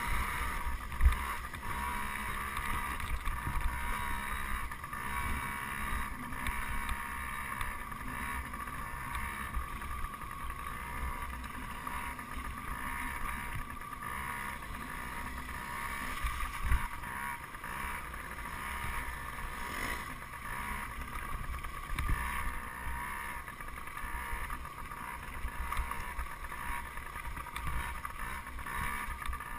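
Dirt bike riding over a gravel trail, heard muffled through the camera's housing: a steady engine drone over wind rumble, with knocks from bumps in the track, the loudest about a second in.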